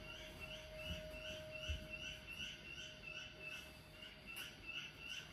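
Faint, evenly spaced chirping, about three short chirps a second, over a faint steady hum, with two soft thumps about one and two seconds in.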